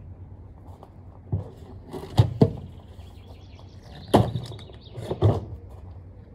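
A series of about five dull thumps and knocks, the loudest a close pair about two seconds in and another about four seconds in, with birds chirping faintly.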